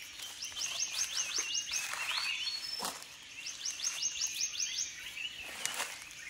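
An animal in the forest calling in runs of rapid, high, rising chirps, about eight a second, each run lasting a second and a half and coming about every three seconds. Hands scrape and rustle in dry leaf litter and soil under it.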